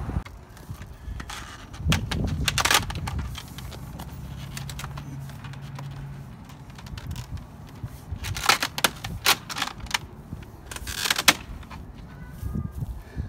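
Mobile home skirting panels clattering and clicking as they are pushed and snapped up into the top trim rail, in a few short bursts of rattling knocks. A low steady hum sounds for a couple of seconds midway.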